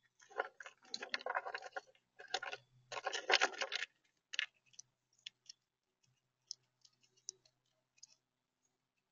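Gray squirrel rummaging in a tub of acorns: two bursts of acorns rattling and scraping against each other, then sparse small clicks as it gnaws an acorn held in its paws.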